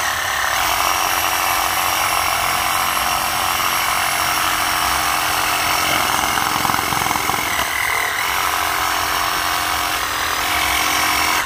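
Powered string trimmer held on edge, its line spinning into the soil. It runs steadily and stops abruptly at the very end, after hitting a root.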